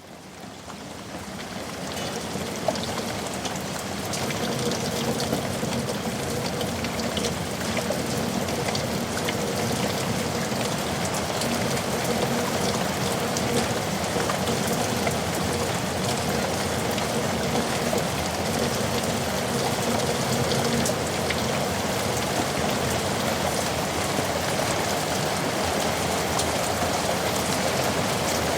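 Heavy rain falling in a yard: a steady downpour with many separate drop hits. It fades up over the first few seconds, then holds steady.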